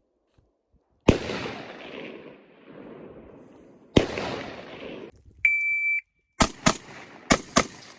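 Two single gunshots, each with a long echoing tail, about three seconds apart. Then an electronic shot timer gives one steady start beep, and a quick string of gunshots in two fast pairs follows.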